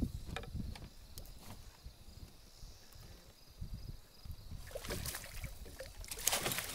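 Water splashing and low knocks around a small fishing boat, the splashing louder and more broken from about two thirds of the way in.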